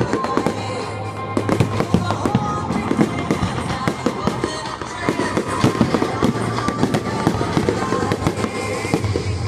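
New Year fireworks crackling and popping in rapid, continuous volleys, with music playing along underneath.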